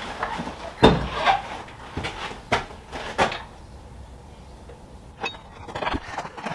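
A few sharp metal knocks and clunks from parts and tools being handled on a milling machine's table and vise: one about a second in, two more around two and a half to three seconds, and fainter ones near the end.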